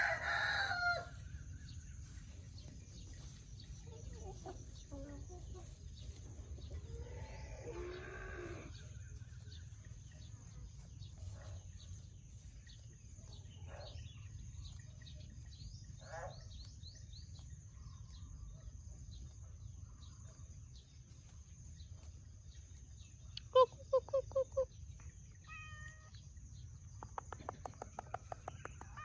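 Farmyard chickens: a rooster's crow ends about a second in, and another crow-like call comes around eight seconds in. Later there is a short run of loud clucks, then a rapid pulsing hen call near the end. Scattered short chirps come in between, over a steady high-pitched whine.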